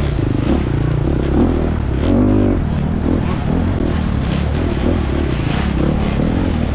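Husqvarna FX 350 dirt bike's single-cylinder four-stroke engine running hard, its pitch rising and falling as the throttle is opened and closed.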